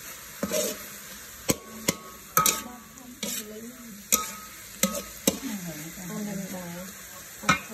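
Diced pork stir-frying in oil in a metal wok: a steady sizzle, with a metal spatula repeatedly scraping and clacking against the wok as the meat is turned.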